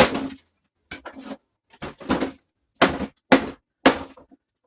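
Electric pressure washer's white plastic shell being struck hard to break it open: about six loud, sharp blows at irregular intervals, each ringing briefly.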